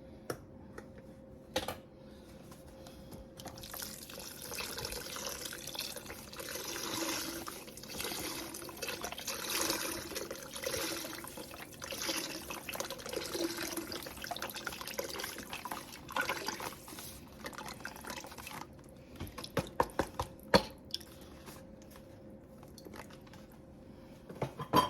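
Chicken broth poured out of its container into the dish, a liquid pour lasting about fifteen seconds, followed by a few light knocks and clicks near the end.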